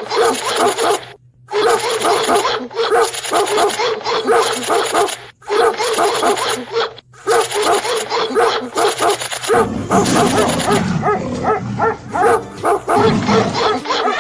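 Dogs barking and yelping in quick succession, a sound-effect track that drops out briefly three times. A denser low rumbling mix comes in over the last few seconds.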